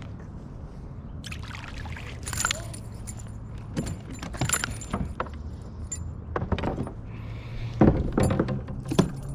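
Scattered metallic clinks, rattles and knocks while a hooked largemouth bass is brought into a kayak on a spinnerbait, over a steady low hum.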